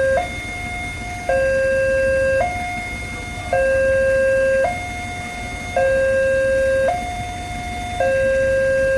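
Electronic two-tone warning siren of a railway level crossing, alternating evenly between a higher and a lower tone about once a second, the lower tone louder. It is the crossing's alarm that a train is approaching.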